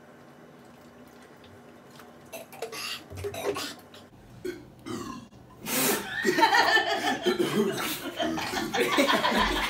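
Young men gulping soda straight from 2-liter bottles, with wet swallowing sounds, then, about six seconds in, loud burping mixed with laughter as the carbonated soda comes back up.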